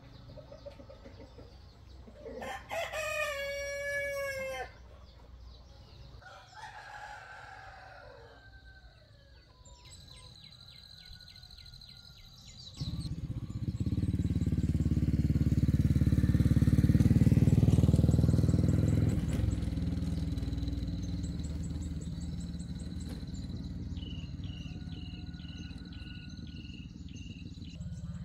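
A rooster crowing once loudly a few seconds in, with a fainter crow a few seconds later and small bird chirps. About halfway through a loud low rumble starts suddenly, swells, then slowly fades away.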